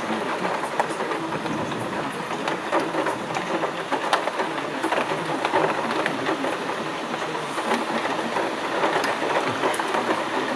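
Heavy rain pattering steadily on a window, a dense spatter of countless small drop impacts.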